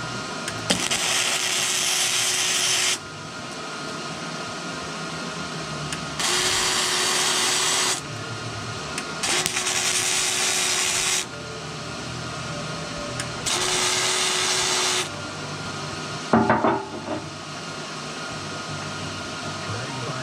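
MIG welding arc crackling in four separate runs of about two seconds each, with the wire-feed motor whining steadily during each run. A steady machine hum fills the gaps, and a short metallic clatter comes about three-quarters of the way through.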